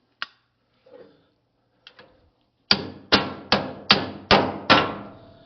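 A hammer striking metal: a single sharp click and a couple of light taps, then a run of six hard, ringing blows at about two to three a second.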